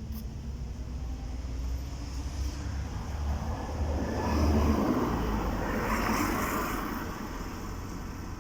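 A car running, heard as a steady low rumble, with a broad rush of noise that swells up about four seconds in and dies away by about seven seconds.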